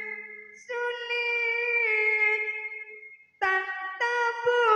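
Solo end-blown wind pipe playing a slow melody of long held, slightly wavering notes with a bright, reedy tone. It breaks off for a moment a little past the middle and picks up again.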